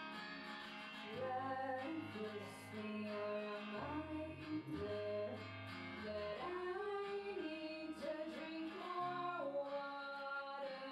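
A small band playing live: guitar and bass guitar, with a woman's voice singing a melody that comes in about a second in.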